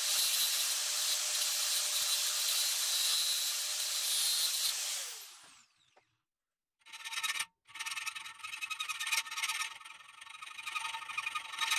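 A small high-speed power tool running, then switched off and winding down in pitch about five seconds in. After a short silence, a hand file rasps in repeated strokes across a small metal piece clamped in a vise.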